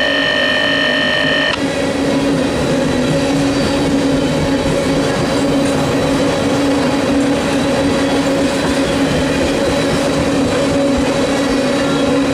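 Railroad tank cars of a freight train rolling past close by: the steady rumble of steel wheels on rail. A high, steady squeal over the first second and a half cuts off suddenly.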